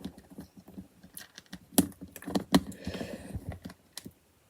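LEGO plastic bricks clicking and rattling as pieces are handled and pressed together, with two sharper snaps about two and a half seconds in and a brief scraping noise about three seconds in.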